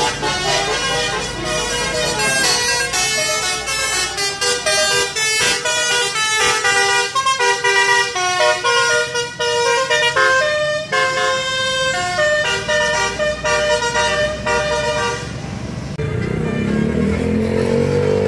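Bus 'telolet' horn, a multi-trumpet air horn playing a fast tune of quickly changing notes. About sixteen seconds in, the tune gives way to a single tone that rises in pitch and then holds steady.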